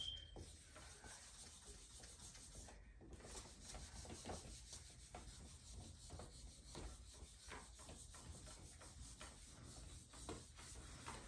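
Faint repeated rubbing strokes of a handheld eraser wiping across a whiteboard surface.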